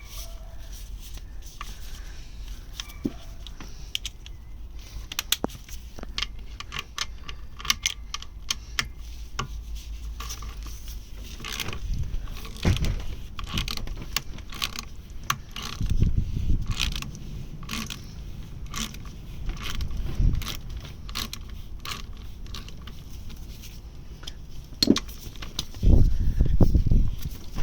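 Metal hand tools clicking and clinking against the clutch spring bolts of a motorcycle engine as they are undone a bit at a time, with a few dull handling thuds.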